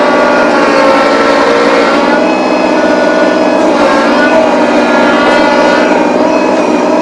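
Small tractor's engine running loud and steady, its pitch wavering slightly about halfway through.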